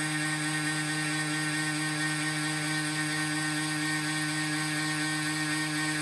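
Milling machine spindle running steadily as an end mill cuts a keyway pocket into a round shaft: an even whine made of several fixed pitched tones, the lowest one strongest.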